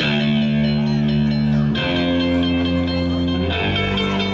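Live rock band playing an instrumental passage: electric guitars and bass guitar holding sustained chords, changing chord twice.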